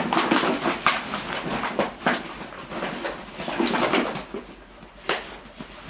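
Hovawart dogs growling and scuffling in a rough tussle, with short sharp bursts of noise, as the mother disciplines a puppy.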